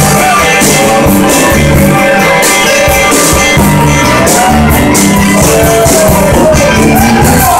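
Live blues-rock band playing: drum kit, electric bass and guitar, with a harmonica playing bending notes over the top.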